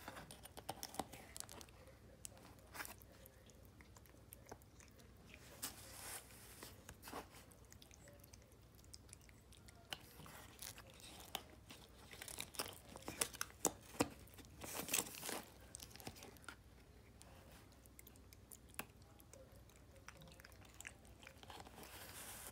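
Faint, irregular clicks and smacks of a Siamese cat eating soft wet cat food off a plastic spoon, mixed with the spoon scraping the plastic food tray. The clicks come thickest around the middle.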